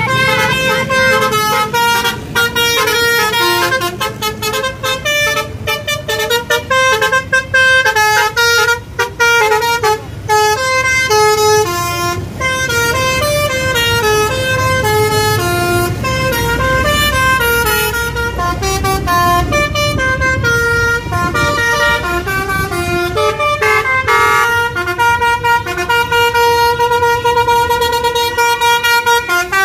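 Bus telolet basuri musical horn playing tunes in quick stepping runs of notes, often several pitches at once, settling into long held notes in the last few seconds, over a low vehicle rumble.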